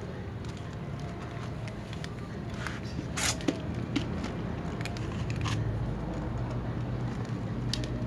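Cats crunching dry kibble, with scattered crackly clicks, the sharpest about three seconds in, over a steady low hum.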